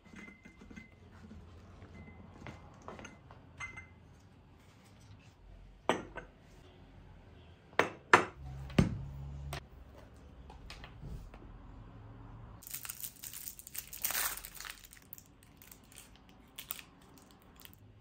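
Porcelain coffee cup and saucer clinking a few times on a table, then a longer rustle of book pages being turned.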